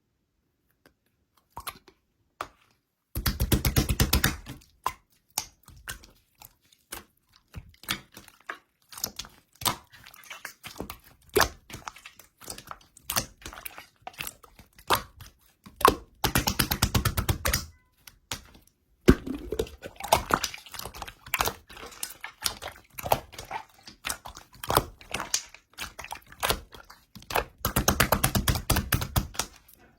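Slime being pressed and stretched by hand, its trapped air bubbles popping in sharp clicks: three runs of rapid crackling clicks, with scattered single clicks and squishes between.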